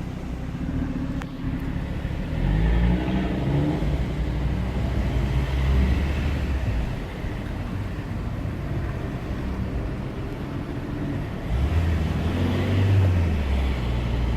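Audi RS3's turbocharged 2.5-litre five-cylinder engine running at a standstill with a steady low drone, swelling in pitch and level twice, about two seconds in and again about twelve seconds in. The owner calls the sound abnormal.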